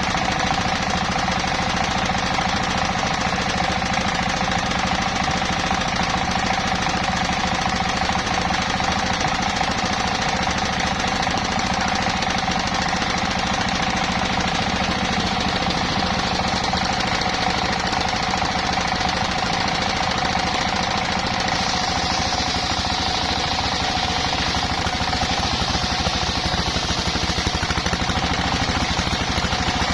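Engine-driven circular sawmill running steadily while sawing bayur timber into beams, with rapid engine knocking under a steady whine. A higher hiss joins about two-thirds of the way in.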